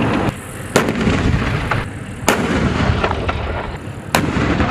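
Tank cannon-fire sound effect: three sharp bangs about a second and a half apart over a steady low rumble.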